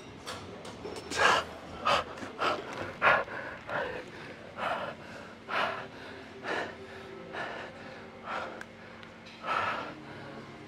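A man breathing hard in heavy gasps, about one a second and slowing a little toward the end, as he catches his breath after a set of hack squats taken to failure.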